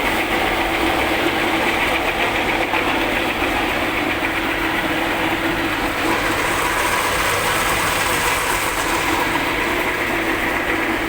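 Two-roller stainless steel soybean skin separator (dehuller for tempe making) running, a loud, steady mechanical noise that keeps an even pace.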